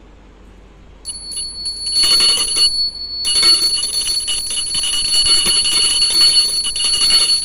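Small hand-held puja bell (ghanti) rung rapidly and continuously. It starts about a second in, breaks off briefly near the three-second mark, then rings on again.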